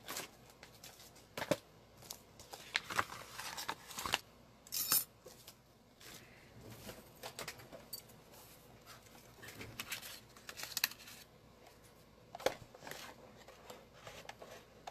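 Craft supplies being handled and rummaged through on a desk: scattered clicks, taps and rustles of paper and plastic, with a short sharp rasp about five seconds in.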